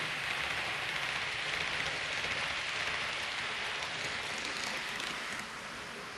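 Hornby OO gauge Class 390 Pendolino model train running on its track: a steady hissing whirr of the motor and wheels on the rails, dropping in level a little after five seconds in.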